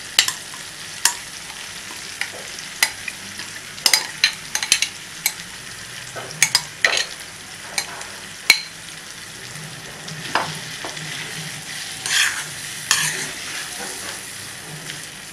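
A metal spoon scooping mashed vegetables out of a glass bowl into a kadai and stirring them, with many sharp clicks and knocks of the spoon against the bowl and pan over a steady frying sizzle. There is a longer stretch of stirring and scraping about two-thirds of the way through.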